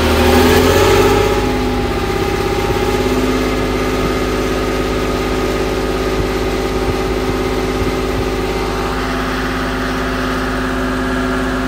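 Chieftain Mk10 tank's Leyland L60 two-stroke opposed-piston diesel engine running steadily, a little louder in the first second or two.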